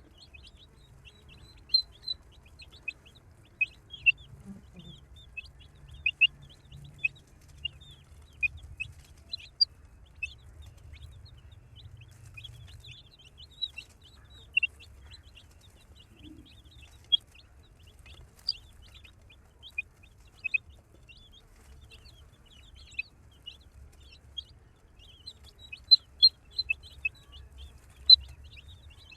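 Baby chicks peeping: many short, high calls in irregular flurries, over a faint low hum.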